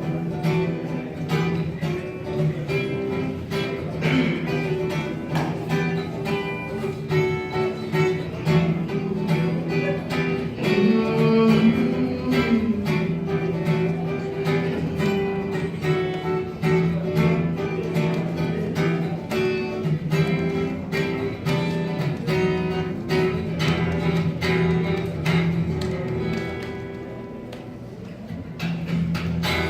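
Guitar strumming and picking on its own, with no drums or singing: the instrumental opening of a song. It plays softer for a moment near the end, then picks up again.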